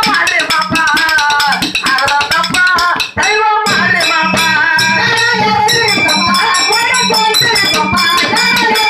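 A man singing a wavering folk melody over a barrel hand drum and fast, steady clashing of small hand cymbals. The music dips briefly about three seconds in, then carries on with a thin steady high tone added.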